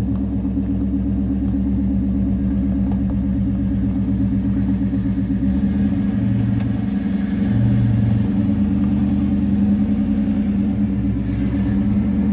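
Ford Mustang Bullitt's 4.6-litre V8 engine running steadily after a new starter has been fitted, the tone shifting slightly about six seconds in. No grinding is heard from a starter drive dragging on the flywheel.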